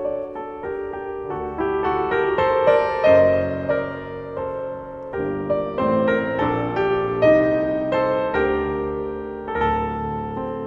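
Soft instrumental piano music, a flowing melody of struck notes over held chords.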